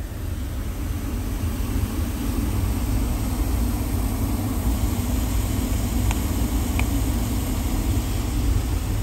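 Jaguar F-TYPE's supercharged 3.0-litre V6 idling, heard from inside the cabin as a steady low rumble. It grows a little louder over the first second or two, and two faint clicks come about six and seven seconds in.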